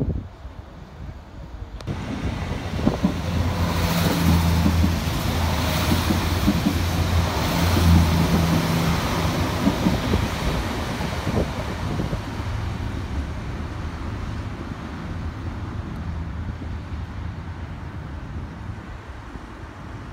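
Irish Rail diesel multiple unit passing close by: a steady low diesel engine drone with wheel and track noise, swelling about two seconds in, loudest a few seconds later, then fading slowly as the train moves off.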